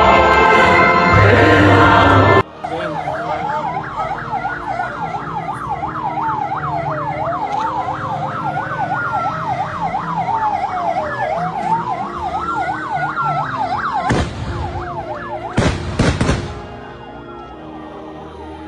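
Choir music cuts off about two seconds in and gives way to emergency vehicle sirens. One siren yelps in rapid up-and-down sweeps while another wails, rising and falling slowly about every four seconds. Two loud bursts of noise cut across the sirens near the end, after which a fainter wail continues.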